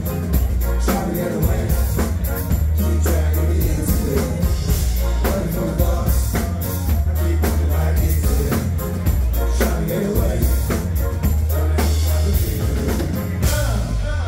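Live band playing loud amplified music, with a heavy bass line, a drum kit keeping a steady beat, and singing.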